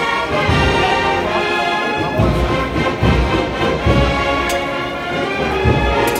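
Agrupación musical band playing a processional march: a brass melody over deep, regular drum beats.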